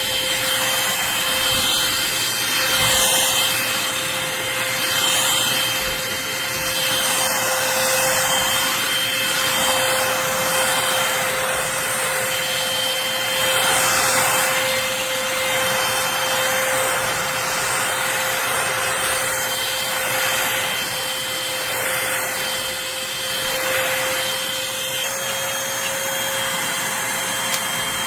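Eureka Blaze cordless stick vacuum running with a steady motor whine. Its airflow hiss swells and fades every few seconds as it works the floor.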